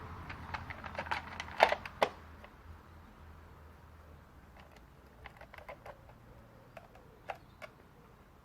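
Scattered plastic clicks and knocks as a chainsaw's top cover is fitted and the saw handled, with two louder knocks about two seconds in, then fainter sparse clicks. The engine is not running.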